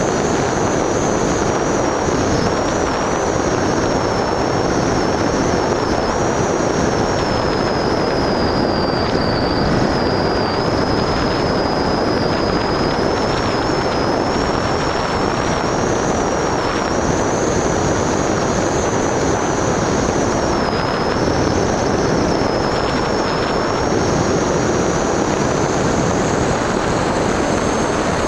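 Onboard audio from an FPV radio-controlled model aircraft in flight: steady rushing wind and propeller noise with a thin, high motor whine that wavers slightly in pitch.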